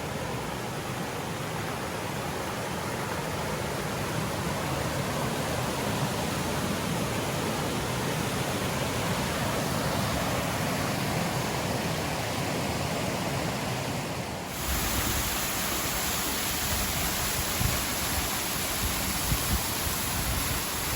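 Mallyan Spout waterfall's falling water, a steady rushing noise from a fall carrying plenty of water. About two-thirds of the way in the sound abruptly becomes deeper and heavier.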